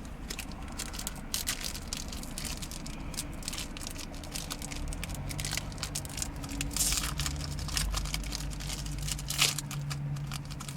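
Foil wrapper of a Yu-Gi-Oh booster pack crinkling and tearing open, a long run of sharp crackles.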